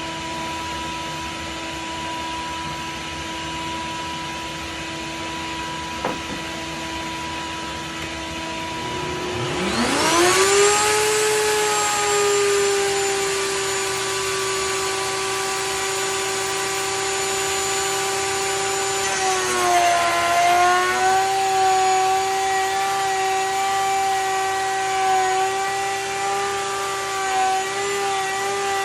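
A steady machine hum, then about a third of the way in a high-speed electric power tool spins up with a rising whine and runs on at a steady high pitch. About two-thirds through its pitch dips and wavers as it loads down, typical of cutting into wood.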